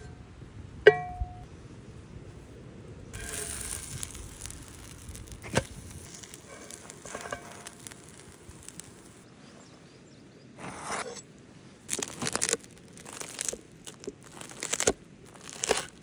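A crisp-crusted pan-fried flatbread being cut with a knife: a run of sharp crunching bursts over the last five seconds, the loudest part. Earlier there is a quieter hiss and a few taps from the frying pan.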